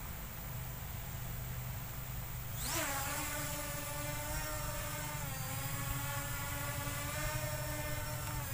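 Small K911 Max quadcopter drone's motors spin up with a quick rising whine about two and a half seconds in as it lifts off. Its propellers then hold a steady, multi-tone whine as it hovers.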